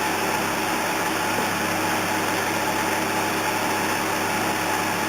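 Steady mechanical drone with a constant low hum and hiss, unchanging throughout.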